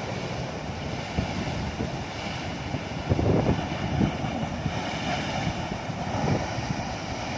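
Wind gusting on the microphone in uneven buffets, strongest about three and six seconds in, over the steady wash of surf.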